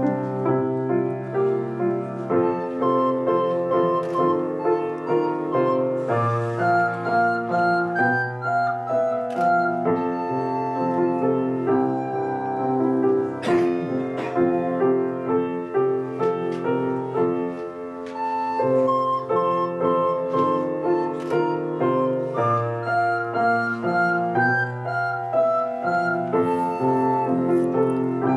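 A child playing a recorder melody with grand piano accompaniment.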